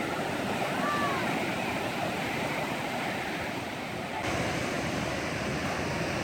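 Ocean surf washing onto the beach: a steady rush of noise.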